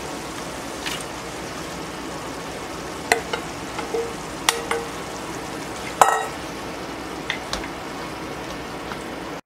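Sofrito sizzling steadily in a wide aluminium pan as a seafood mix is scraped in from a steel bowl with a wooden spoon. A handful of sharp knocks of the spoon against the metal come through; the loudest, about six seconds in, rings briefly.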